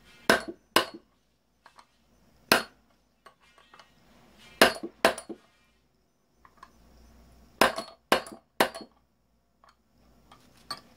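Hammer blows on metal, eight sharp clinking strikes in small groups (two, one, two, then three), knocking at a stuck part to drive it out.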